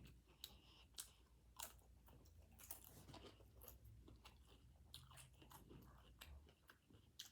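Someone chewing food close to the microphone: soft, irregular crunches and wet mouth clicks.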